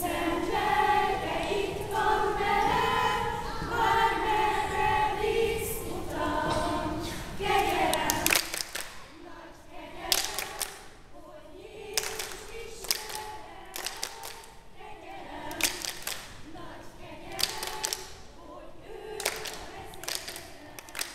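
A choir singing unaccompanied for about the first eight seconds. The singing then breaks off abruptly, and a much quieter stretch follows with faint singing and scattered knocks and thuds.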